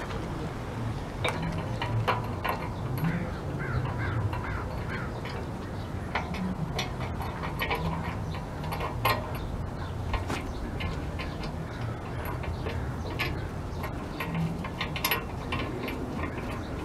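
Birds calling outdoors, with scattered sharp metal clinks and knocks from hands and bolts at the steel front bumper of a military truck, over a steady low rumble.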